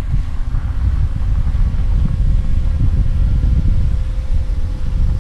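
Wind buffeting the microphone in a loud, uneven low rumble, with a faint steady hum from the Yuneec Mantis Q quadcopter's propellers as it hovers and follows.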